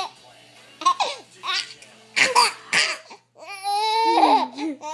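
A baby laughing hard in short bursts, ending in one long high-pitched squeal of laughter about three and a half seconds in.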